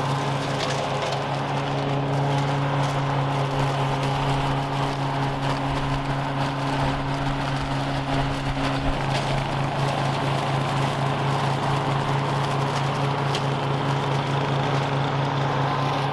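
Toro TimeMaster 30-inch push mower's Briggs & Stratton 223cc engine running steadily under load as it cuts and bags leaves.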